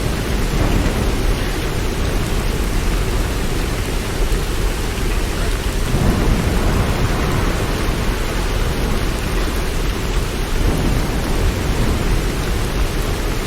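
Steady rain with a continuous deep rumble underneath, swelling a little about six seconds in.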